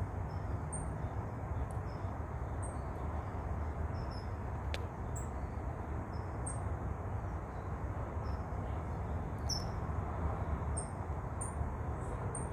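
Steady outdoor background noise with a low rumble, scattered with faint, short, high chirps. A single faint click comes a little under five seconds in.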